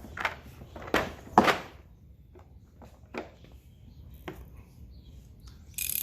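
Hand tools being lifted out of and set back in a plastic tool case: a few sharp knocks and clicks, loudest about a second and a half in, with a short burst of clicking near the end.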